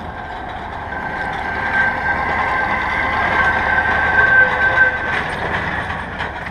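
MAZ truck with a long trailer driving past, its engine and drivetrain making a steady howling whine that grows louder to a peak about four seconds in, then begins to fade.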